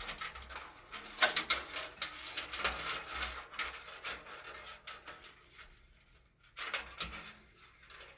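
Close handling noise of PC parts being fitted: irregular runs of small clicks, taps and plastic-and-cardboard rustles, busiest in the first few seconds and again near the end.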